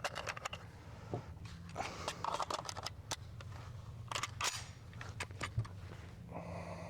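Scattered clicks and clacks of an SKS rifle being handled as it is cleared of its last round.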